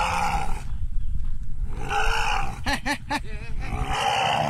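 Elephant calf giving three hoarse, rasping trumpet-roars, one at the start, one about two seconds in and one near the end, the calls of a calf separated from its mother. A steady low engine rumble from an idling motorbike runs underneath.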